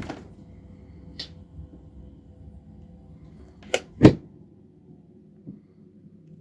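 Refrigerator door opening with a brief rush of noise at the start and a light click about a second in, then shutting with a click and a heavier thud about four seconds in, over a low steady hum.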